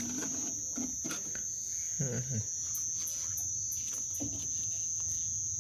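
Steady, high-pitched trilling of night insects, with a brief low murmur of voices about two seconds in and a few faint clicks.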